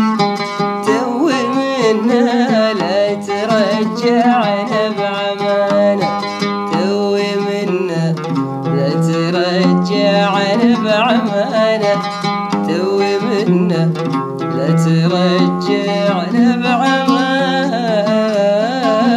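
An Arabic song: a voice singing a wavering, ornamented melody over plucked-string accompaniment and a steady bass line.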